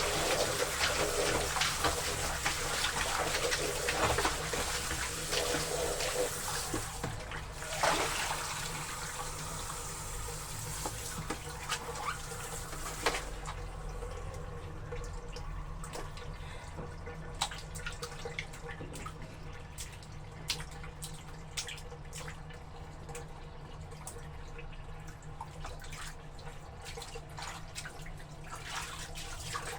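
Water running steadily, as from a tap, then stopping about thirteen seconds in, followed by scattered drips and small splashes of water during laundry washing.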